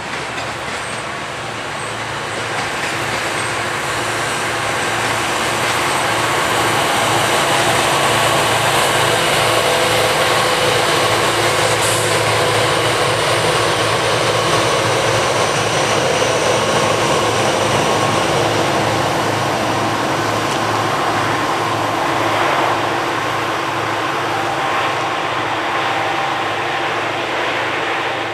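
Norfolk Southern diesel locomotives at the rear of a freight train running past, a steady engine drone mixed with rolling rail noise that grows louder over the first several seconds and then holds. A brief sharp high sound cuts through about twelve seconds in.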